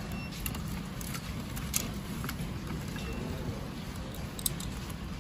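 A handful of light, scattered clicks and taps as a robot's main circuit board is worked loose from its plastic body shell by hand. The clicks sit over a steady low hum.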